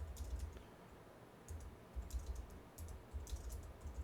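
Computer keyboard and mouse being used: scattered, irregular clicks and keystrokes, some in quick clusters, with dull low thuds under them.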